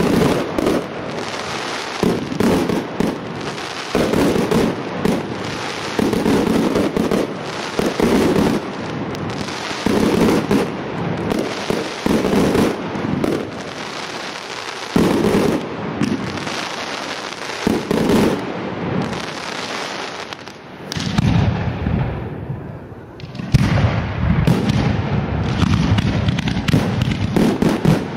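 Professional aerial fireworks: shells bursting in quick succession over a continuous crackle, with loud bangs every second or two. The barrage thins briefly about 21 seconds in, then resumes as a dense run of overlapping bursts.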